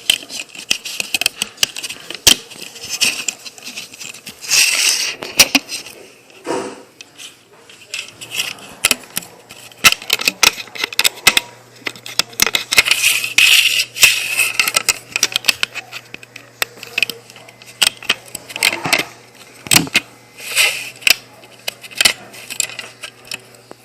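Irregular plastic clicks and rattles from a rubber-band loom and its hook being handled as a finished bracelet is taken off the pegs.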